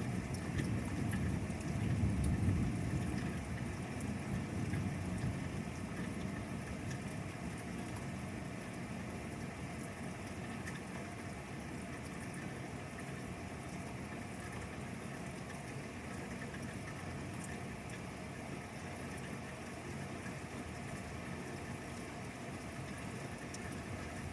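Thunder rumbling, loudest in the first few seconds and dying away, then a steady hiss of rain.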